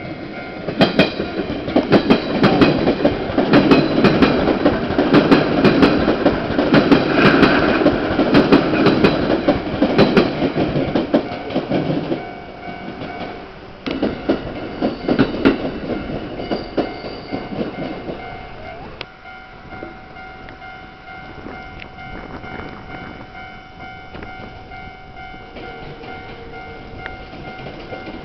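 Electric commuter trains passing over the level crossing and points, their wheels clattering over the rail joints with many sharp clicks. The loudest pass fills about the first twelve seconds. A second, shorter pass comes a couple of seconds later, and then it settles to a quieter steady running sound.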